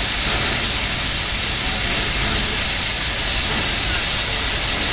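Southern Pacific 4449, a GS-4 4-8-4 steam locomotive, standing and hissing steam steadily.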